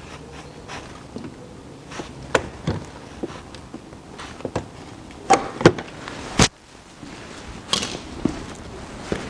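Spring hose clamps on the CVT external oil filter's hoses being squeezed and worked by hand: scattered clicks and metal knocks, with a few sharper knocks about five to six and a half seconds in.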